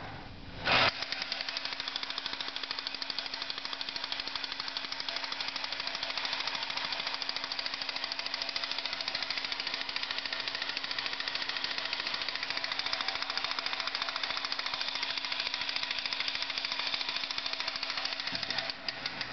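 Vintage Nomura battery-operated tin radar jeep toy running: a sharp click as it starts, then its small electric motor hums steadily under a rapid, even mechanical clatter from its gears and sound mechanism, which changes shortly before the end.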